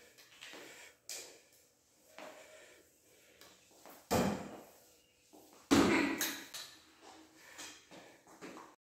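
Mop and its long handle knocking and scraping on a wet tiled floor as it is pushed along. Two loud knocks come about four and six seconds in.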